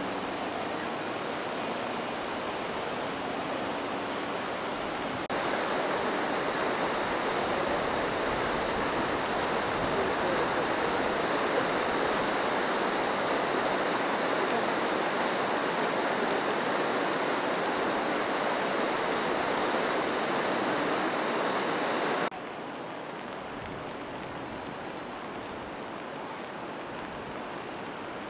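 Fast-moving floodwater rushing in a steady noisy wash with no distinct splashes. It steps up abruptly in loudness about five seconds in and drops back abruptly about 22 seconds in.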